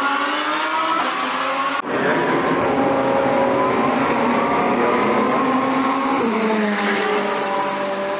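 GT3 race car engines at high revs on track. The pitch climbs, breaks off sharply about two seconds in, then holds high before dropping suddenly about six seconds in.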